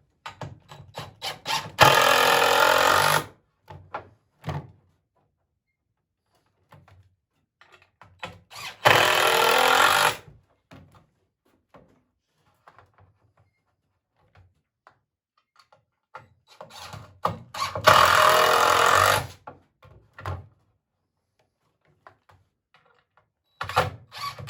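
Power drill driving wood screws into poplar swing slats in three steady bursts of about a second and a half each, with a fourth starting near the end. Light knocks and clicks of handling wood and parts come between.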